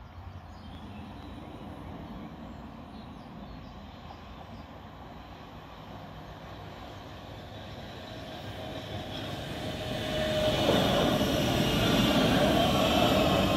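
Oslo Metro MX3000 train approaching and running over a level crossing. A low rumble grows louder, then rises sharply about ten seconds in as the cars pass, with steel wheels on the rails and a whine from the running gear.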